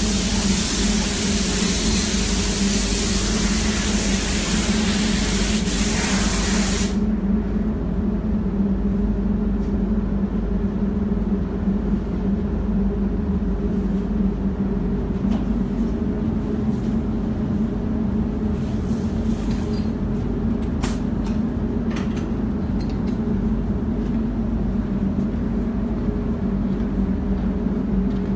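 Paint spray gun hissing for about the first seven seconds, then cutting off, over the steady hum of the spray booth's ventilation. A few light clicks come later.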